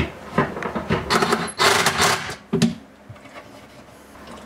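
Bostitch cordless driver with a right-angle attachment running in short bursts, about three, as it drives a screw into plywood.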